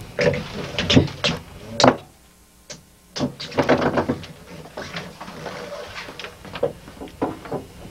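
Irregular knocks and clatter of gear and line being handled on a fishing boat's deck, with a short lull about two seconds in.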